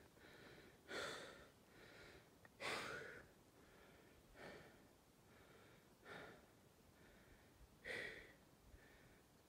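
Faint heavy breathing of a person climbing a steep slope: a strong puff of breath roughly every one and a half to two seconds, with softer breaths between.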